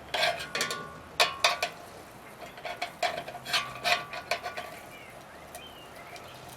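Metal clinks and knocks from a tin can and pliers being handled, some strikes leaving a short ring, clustered in the first four and a half seconds.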